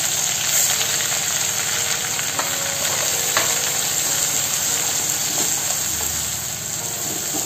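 Ground masala paste sizzling in hot oil in a kadhai as it is stirred, a steady frying hiss with a few light clicks of the spoon against the pan; the sizzle cuts off suddenly at the end.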